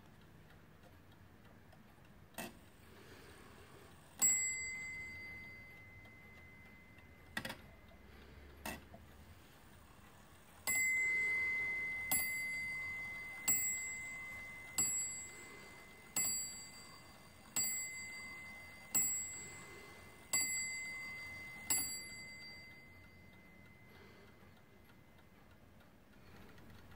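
Warmink 8-day bracket clock striking on its bell: a few clicks from the movement, one ringing strike about 4 s in, then nine strikes about a second and a half apart, each ring fading slowly into the next.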